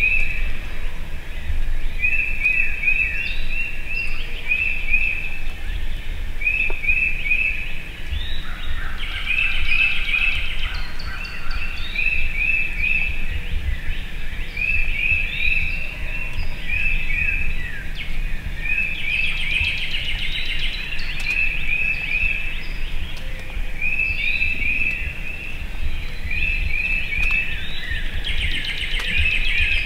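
Songbirds singing outdoors: one bird repeats short phrases of several quick, high notes every second or two, with other bird calls now and then, over a steady low rumble.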